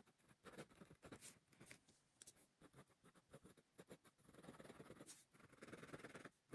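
Ballpoint pen scratching faintly on lined notebook paper: short separate strokes as circles are traced, then longer runs of quick back-and-forth scribbling from about four seconds in as the circles are shaded.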